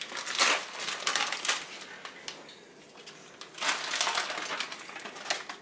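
Plastic packaging of a corned beef brisket crinkling and rustling as it is torn open and pulled off by hand, in several bursts, loudest about half a second in and again near four seconds.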